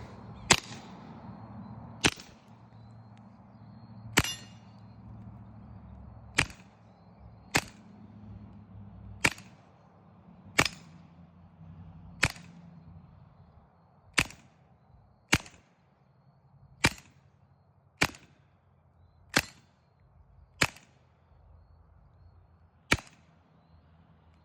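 Taurus TX22 .22 LR pistol firing through a 3D-printed suppressor: fifteen single shots one to two seconds apart.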